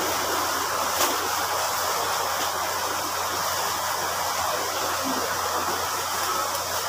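Steady rushing background noise with a low hum underneath, and a single soft click about a second in.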